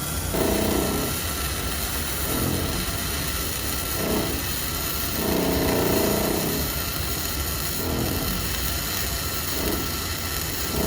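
Flux-core arc welding: a steady hiss and crackle from the arc, over the low hum of the small flux-core welder. Its wire-feed spool turns unevenly with a bump.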